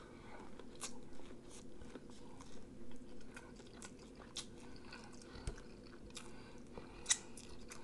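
A person chewing food with the mouth close to the microphone: faint, irregular soft clicks and small mouth noises.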